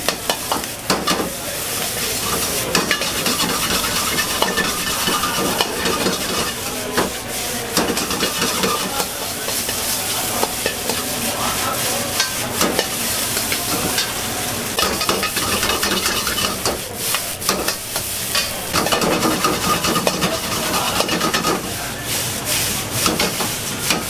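Egg fried rice sizzling in a hot wok, with a metal wok ladle scraping and clacking against the pan again and again as the rice is stir-fried and tossed.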